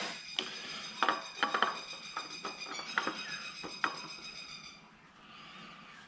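Metal hand tools clinking and knocking against engine parts, about seven separate sharp clicks over four seconds, during an oil filter change. A steady high-pitched tone runs underneath and fades out near the end.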